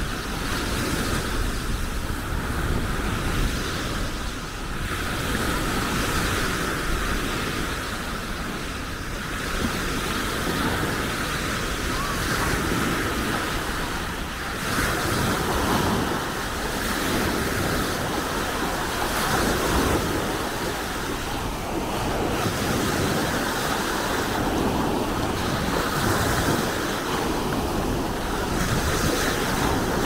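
Baltic Sea surf washing onto a sandy beach, a steady noisy wash that swells and eases every few seconds, with wind rumbling on the microphone.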